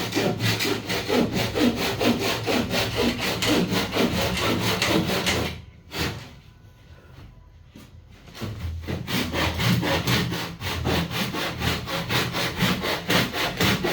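Handsaw cutting wood with quick, even strokes, about four a second. The sawing stops for about two and a half seconds near the middle, then starts again.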